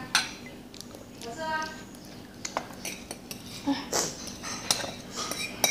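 Metal fork clinking and scraping against a plate of noodles, a series of sharp irregular clicks. A brief voice is heard about a second and a half in.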